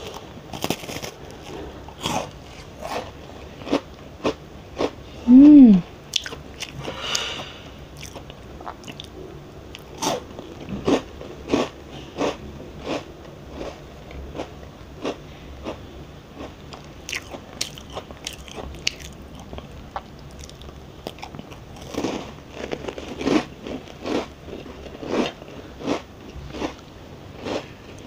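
Close-miked chewing of a crisp homemade lemon cookie: a long run of crunches, one every half second to a second. About five seconds in comes a short hum of the voice falling in pitch, the loudest sound.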